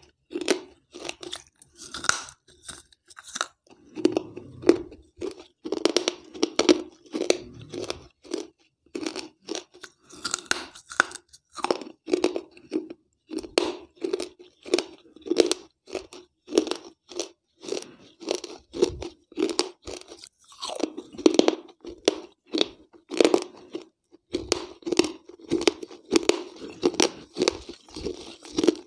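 Wet clay piggy-bank (gullak) shards being bitten and chewed close to a microphone held at the mouth: a steady run of gritty crunches, a few a second.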